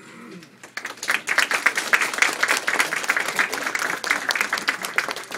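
A class of young children clapping, the applause swelling up about a second in and continuing as a dense, uneven patter.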